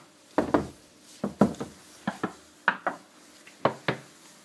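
A hand knocking on the wooden back panel inside a wardrobe, in five quick double knocks.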